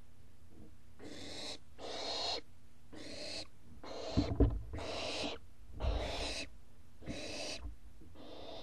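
Young barn owls giving a run of rasping hisses, the food-begging "snore" call, about one a second, eight in a row. A couple of low thumps come in the middle of the run.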